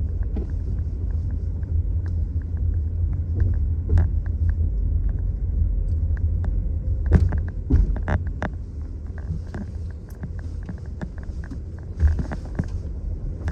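Car driving, heard from inside the cabin: a steady low road rumble, with a few knocks and bumps about halfway through and again near the end.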